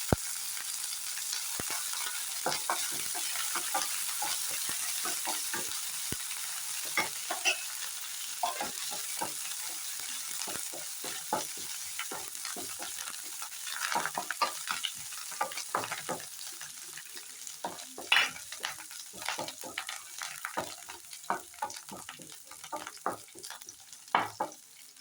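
Tempering of mustard seeds, urad dal, cumin, dried red chillies and crushed garlic sizzling in hot oil and being stirred, with many short ticks and scrapes of the spoon in the pan. The sizzle grows quieter toward the end as the spices finish frying.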